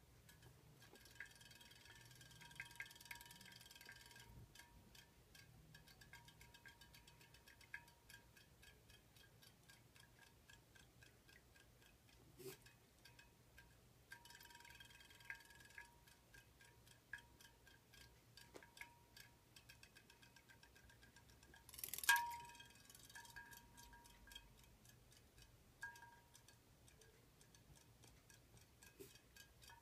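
Faint, rapid mechanical ticking from a battery-powered robotic fish toy, with light ringing clinks against the bowl. One sharper, louder clink rings out about 22 seconds in.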